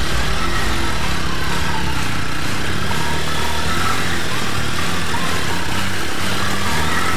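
Motorcycle engines running at low speed, with water splashing as the bikes ride through a shallow, rocky stream.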